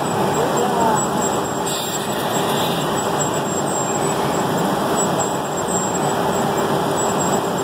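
Industrial processing machinery running steadily: a dense, even mechanical noise with a faint steady hum underneath.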